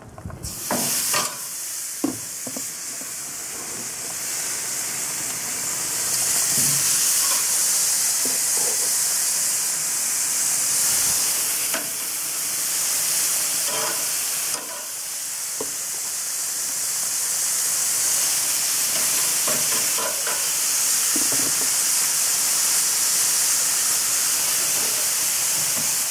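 Steaks sizzling on the hot grates of a propane Weber Genesis gas grill as they are laid on one after another with metal tongs. The sizzle starts just after the first steak goes on, grows louder over the first several seconds and then holds steady. Scattered knocks of the tongs against the grates come through it.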